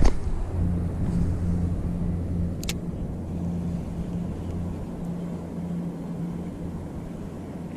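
Small spinning reel being cranked on a lure retrieve, a steady low whirr with a faint pulse from the turning handle that begins just after the cast. A single sharp click sounds a few seconds in.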